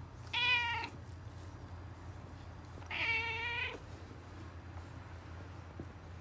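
Domestic cat giving two short meows about two and a half seconds apart while being stroked along the back, asking for more petting.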